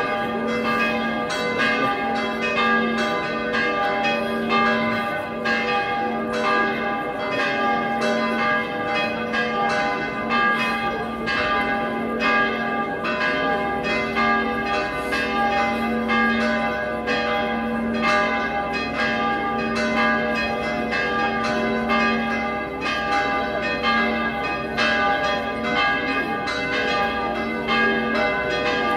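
Church tower bells ringing a continuous peal: several bells of different pitches struck over and over, about two strikes a second, each note ringing on and overlapping the next.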